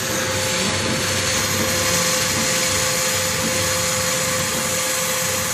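CNC cutting machine running: a loud, steady hiss with a steady mid-pitched tone underneath.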